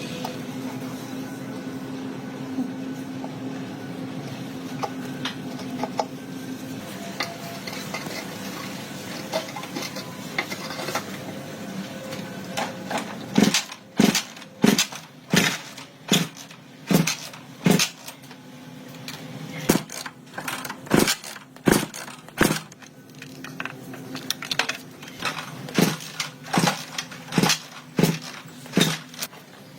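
Metal being struck: scattered light clinks over a low steady hum, then, about halfway through, a run of sharp, loud metallic strikes at roughly one a second.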